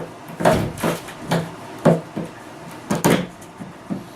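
Sheet of plywood being shifted and knocked into place: a series of about seven irregular wooden knocks and thumps.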